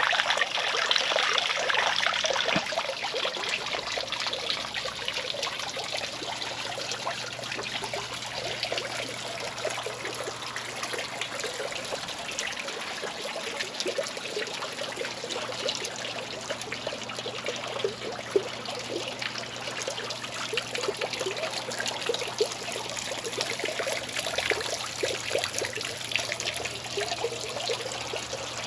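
Three-tier stone fountain running: water steadily trickling and splashing from the tiers down into the basin.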